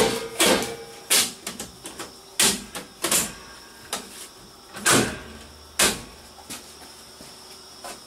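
Base plate being put back into a Stratasys F170 3D printer: a run of sharp knocks and clunks, about seven in the first six seconds, then it goes quieter.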